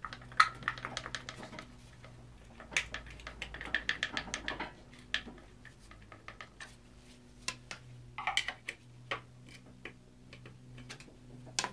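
Irregular metallic clicks and knocks in bursts as gloved hands wiggle and pull at a BMW M54 engine's crankshaft pulley (vibration damper), which is stuck and coming off slowly. A faint steady low hum runs underneath.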